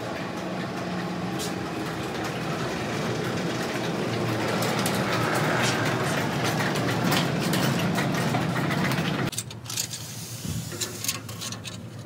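Sectional garage door opening: a steady mechanical noise that grows a little louder and stops abruptly about nine seconds in.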